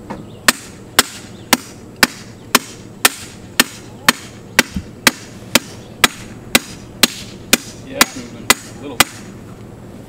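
A steel hammer pounds the top of a steel T-post, about two sharp metallic strikes a second, steady and even, stopping about a second before the end. The post is going only slowly into hard, rocky ground, moving a little with each blow.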